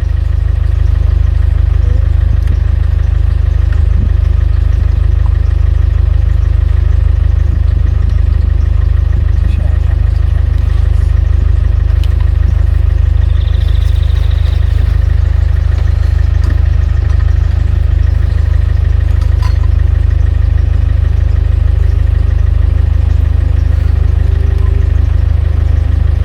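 Car engine and road noise heard from inside the cabin: a loud, steady low rumble.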